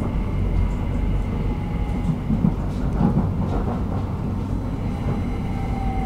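Stockholm metro train running along the line, heard from inside the carriage: a steady rumble of wheels on rails with a faint steady whine and a few faint clicks.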